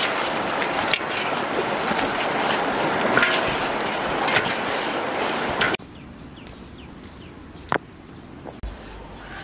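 Steady rushing of river water, with faint wet handling of raw plucked duck carcasses being turned in a metal wok. The rushing cuts off abruptly about six seconds in, leaving a much quieter background with one sharp click near the end.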